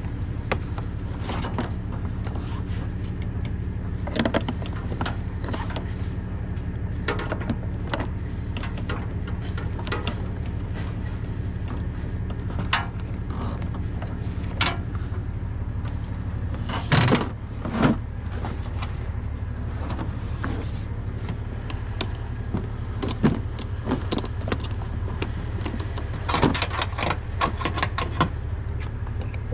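Truck engine idling steadily under the clicks, knocks and rattles of bungee-cord hooks and a magnetic tow light bar being unhooked. There are two louder knocks a little past halfway and a burst of rattling near the end.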